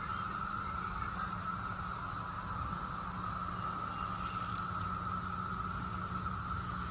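A chorus of cicadas buzzing in one steady, unbroken high drone, with a low rumble underneath.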